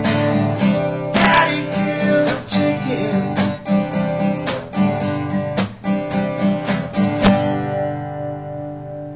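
Acoustic guitar strummed in a steady rhythm, closing the song; a last strum about seven seconds in, then the chord rings and fades.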